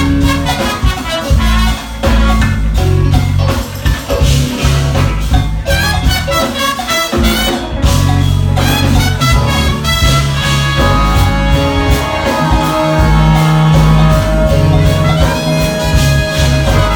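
Live jazz-fusion band playing: saxophone and trumpet horn section over keyboards, electric bass and drums, with a strong bass line and steady drum beat; the horns hold long notes in the second half.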